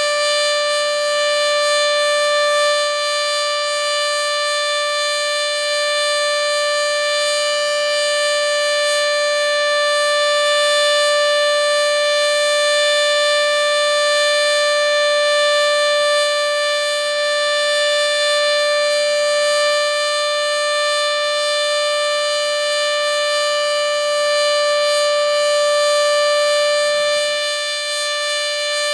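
Sterling 2V8 outdoor warning siren sounding the steady Alert signal: one loud, unwavering tone with no rise or fall in pitch, its loudness swelling and easing slightly.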